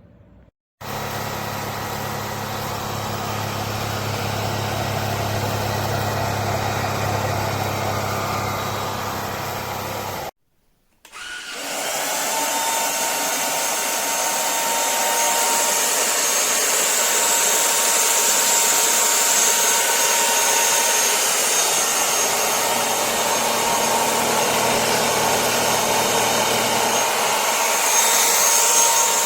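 Lubluelu 25000Pa cordless stick vacuum running steadily with a low hum. Its sound cuts out about ten seconds in, then comes back up over about a second and runs on with a high whine and a thinner low end.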